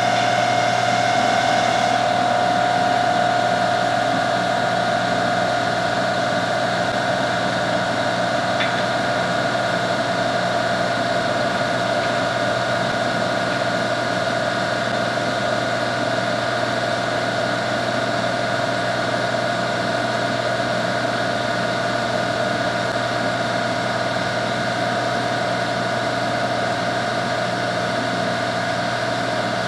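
Hydraulic drive of a 1943 metal planer running steadily just after start-up: a continuous pump whine over a machine hum, easing off slightly in the first few seconds. It is still cold, with air not yet worked out of its hydraulic cylinders, which makes it noisier until it warms up.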